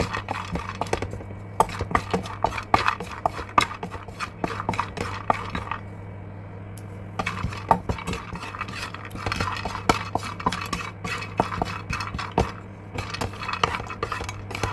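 Cashew nuts being roasted and stirred in a pan: frequent clinks and scrapes of the spatula against the pan, with a short lull about six seconds in, over a steady low hum.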